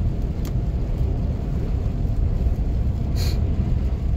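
Steady low rumble of a car driving on a snow-covered road, heard inside the cabin: tyre and road noise with the engine. A brief sharp click about three seconds in.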